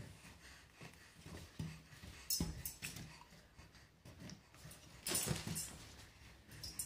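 Rustling and light bumps as latex balloons are handled and brushed against each other and the bedding. There is a sharper knock about two and a half seconds in and a louder rustling burst about five seconds in.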